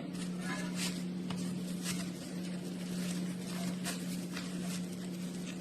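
A steady low hum, with faint scattered clicks and taps.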